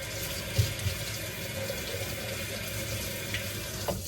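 Kitchen faucet running in a steady stream, shut off near the end.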